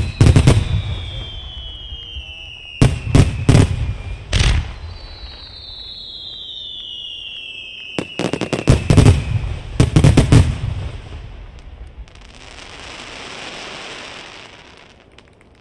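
Fireworks display: volleys of aerial shells bursting in quick clusters of sharp bangs, with long whistles sliding slowly down in pitch between them. After the last volley, about ten seconds in, a soft hiss swells and fades.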